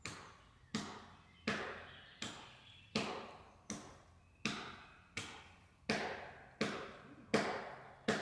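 A steady series of sharp knocks, about one every 0.7 seconds, each dying away quickly, like repeated blows of a tool on wood.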